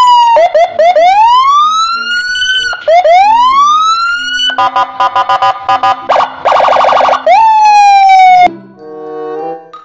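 Electronic police siren cycling through its patterns: rising wails broken by short chirps, then a fast pulsing warble, then a falling tone. It stops about a second and a half before the end.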